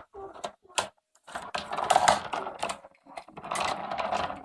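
Plastic toy vehicles being handled: a few sharp clicks, then longer stretches of rattling and ratcheting from moving plastic parts.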